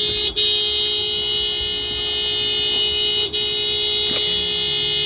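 A loud, steady electric horn-like blare held on one pitch, broken twice for an instant.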